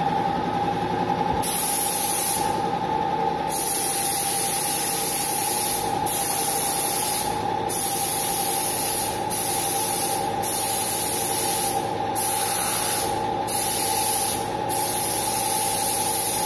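Compressed-air paint spray gun hissing in repeated bursts of a second or two, with short breaks as the trigger is released, over a steady motor hum.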